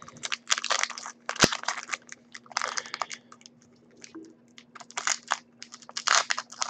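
Foil wrapper of a Crown Royal trading card pack being torn open and peeled apart by hand, crinkling and crackling in irregular bursts, with one sharp click about a second and a half in.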